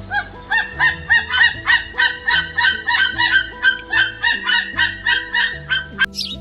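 Waterfowl honking in a rapid series of about three to four calls a second, over steady background music. About six seconds in it cuts off abruptly to high, short bird chirps.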